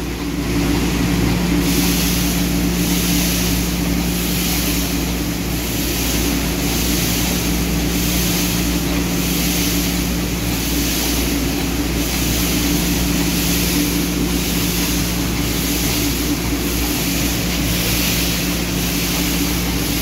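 Dust extraction system at a coffee dumping grate running: a steady machine hum with two low tones under a hiss that swells and fades a little more than once a second.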